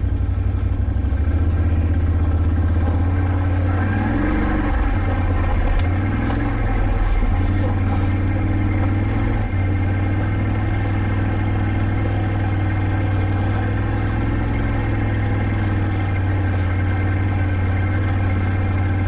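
Can-Am ATV engine running steadily under the rider on a trail ride, its note wavering with throttle changes about four to nine seconds in.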